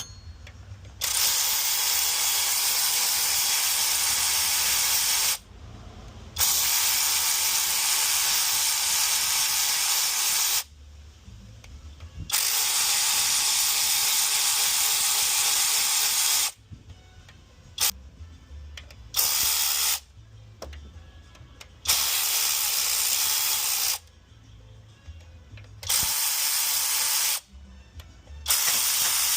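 A pressurised spray hissing in repeated bursts that start and stop sharply. The first three bursts last about four seconds each, and the rest are shorter, one to two seconds each.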